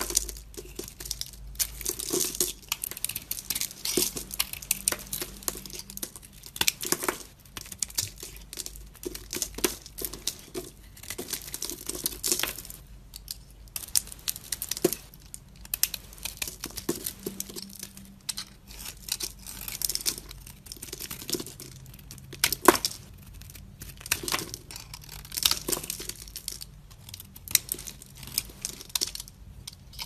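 Snap-off utility-knife blade shaving flakes off a bar of dry soap: a continuous run of crisp scraping strokes, with the brittle chips crackling as they break away.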